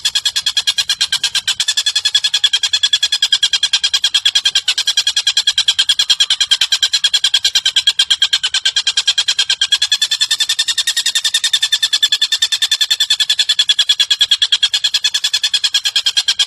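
A bird's fast, unbroken trill of about ten pulses a second, steady in pitch with a slight bend about ten seconds in. This is a bird-call recording used to tutor lovebirds.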